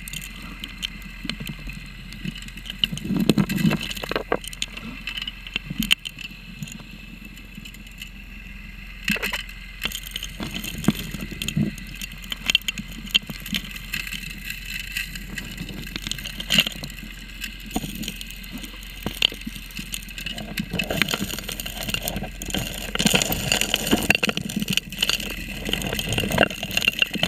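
Heard underwater: gravel and small stones clicking and knocking as the suction nozzle of a 3-inch gold dredge draws them up, over the steady drone of the dredge's engine and pump. The clicking grows busier near the end.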